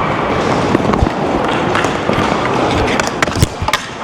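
Dek hockey play heard from a player's body-worn camera: a steady rush of movement noise with a run of sharp clacks of sticks and ball on the plastic court, thickest about three seconds in.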